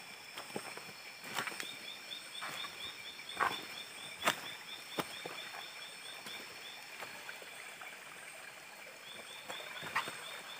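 Night chorus of insects and frogs at a stream: steady high-pitched trilling, with a rapid chirping of about eight chirps a second that stops and starts. Scattered short knocks and scuffs of footsteps on stones sound through it.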